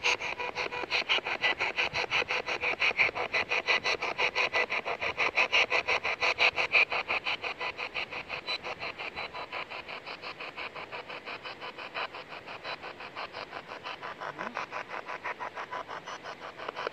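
Spirit box sweeping through radio stations: a steady, rapid chopping of radio static, cut up into short even pulses several times a second.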